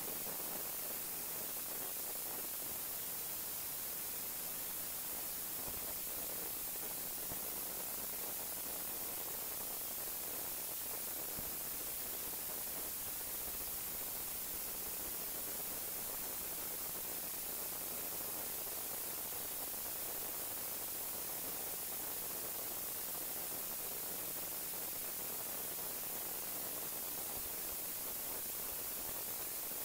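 Steady static-like hiss, even in level and unchanging throughout, with no clear blender motor or handling sounds standing out.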